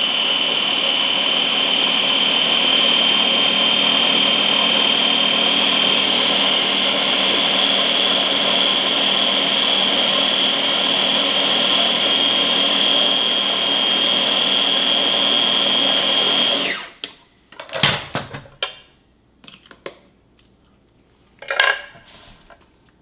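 Small personal blender running steadily with a high whine while blending hummus, cutting off about 17 seconds in. A few short knocks and clicks follow.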